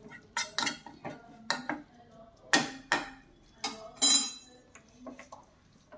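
A metal spoon clinking and knocking against a small stainless steel pan while dried fenugreek leaves are stirred and roasted in it: a string of sharp separate clicks, with one louder ringing clink about four seconds in, then only a few faint ticks.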